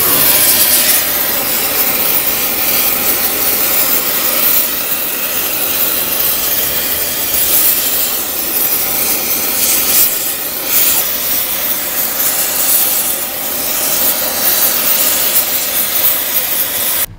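Oxy-fuel torch flame running with a loud, steady rushing hiss as it heats the steel axle of a dump truck; it begins and ends abruptly.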